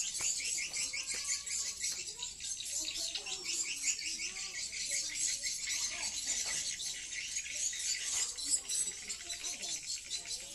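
Swiftlets twittering: a dense, continuous high-pitched chirring made of rapid repeated chirps, with lower wavering sounds underneath.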